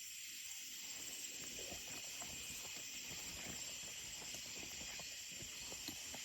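Steady high-pitched trilling of night insects, with faint scattered ticks and rustles.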